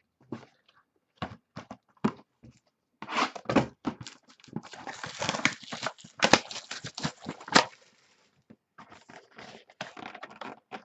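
Trading-card packaging being handled and torn open: scattered clicks and taps, then a few seconds of crinkling and tearing with sharp clicks, then lighter rustling near the end.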